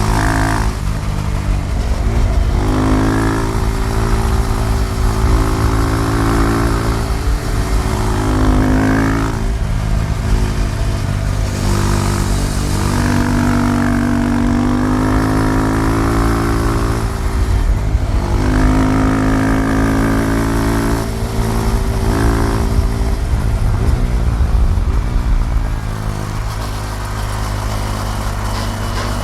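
KTM Duke 390's single-cylinder engine under way, its pitch climbing and falling again and again as the bike accelerates and eases off, over a steady low rumble of wind and road.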